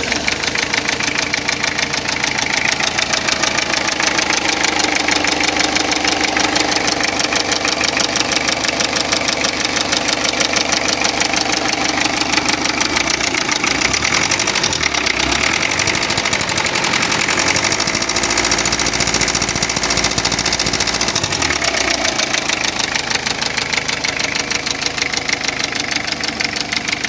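Toyota 3C-TE four-cylinder turbodiesel in a Toyota Estima Lucida running with a knock in the engine, whose cause the owner does not know. The engine speed shifts around the middle and settles back.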